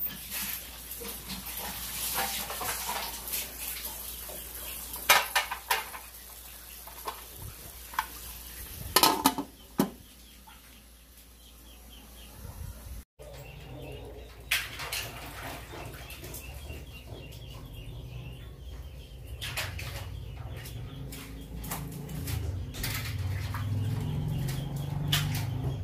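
Metal pot and utensil clatter: several sharp knocks and clinks in the first ten seconds, then fainter clinks over a low steady hum.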